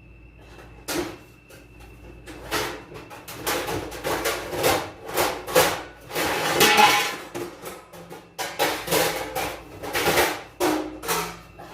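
Baking pans clattering and banging against each other as one is pulled out from among others, a rapid run of loud knocks and clanks starting about a second in.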